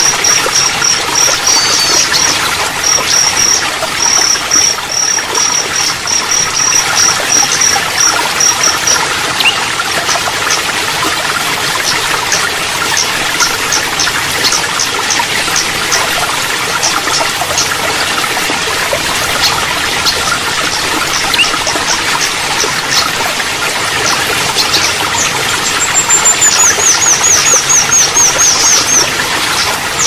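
Running water trickling steadily, with a small songbird calling over it: a fast run of high repeated chirps for the first nine seconds or so, scattered high ticks, then a falling series of high notes near the end.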